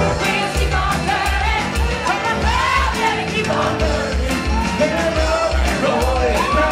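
Band music with a singing voice over a steady, evenly spaced drum beat.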